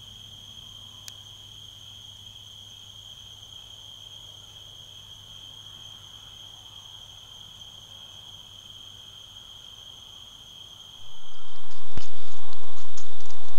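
Faint, steady high-pitched insect trilling, like crickets, over a low hum. About eleven seconds in it gives way abruptly to a much louder rushing noise with a sharp click and a few quick ticks.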